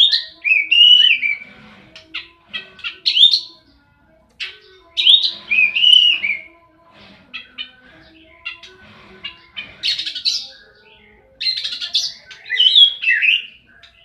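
Oriental magpie-robin (kacer) singing in aggressive fighting-style song: loud phrases of rising and falling whistles, quick short chirps and harsher rasping notes. The phrases come in bursts a second or two long with short pauses between them.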